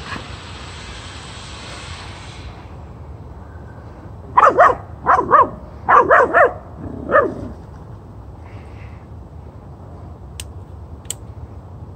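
Doberman puppy barking: a quick run of about eight short, high barks in clusters of two and three, lasting some three seconds midway.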